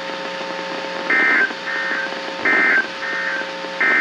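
NOAA Weather Radio SAME end-of-message data bursts: three short two-tone digital bursts about a second and a half apart, each followed by a fainter copy, over a steady low hum. They mark the end of the warning broadcast.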